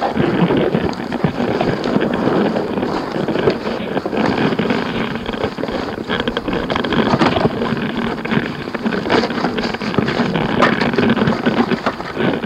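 Experimental noise / musique concrète: a dense, continuous rumbling and rustling texture of amplified sound, thick with small clicks and crackles, loud throughout with no steady pitch.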